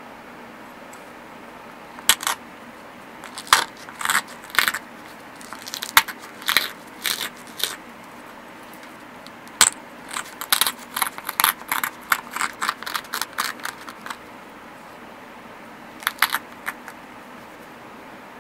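Abrading stone ground along the edge of an obsidian piece in short scraping strokes, in scattered runs with a fast back-and-forth run in the middle. This centers the edge and sets up platforms for flaking.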